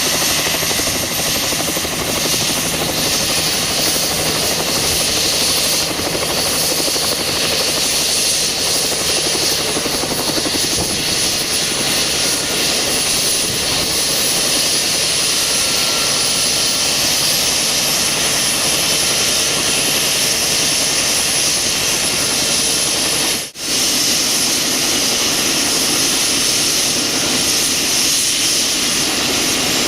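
Bell 206LT TwinRanger helicopter's twin turbine engines running steadily with the rotor turning, a continuous rushing noise with a high turbine whine above it. The sound drops out for an instant about three-quarters of the way through, then carries on the same.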